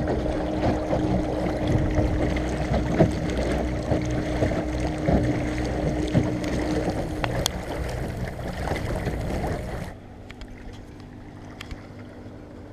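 Water rushing and splashing along an inflatable dinghy's hull as it cruises under an electric trolling motor, with wind on the microphone and a steady hum from the motor. About ten seconds in, the sound drops abruptly to a much quieter background.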